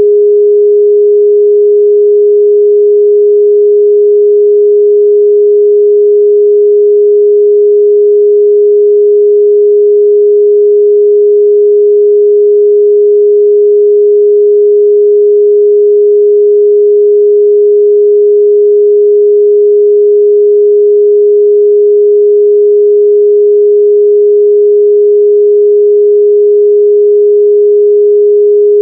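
A steady, unbroken 414 Hz sine-wave test tone: one pure mid-range pitch at a constant level, with no other sound.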